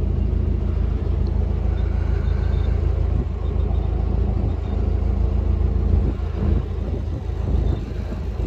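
A narrowboat's engine running steadily while cruising: an even low throb with a slight dip in level about six to eight seconds in.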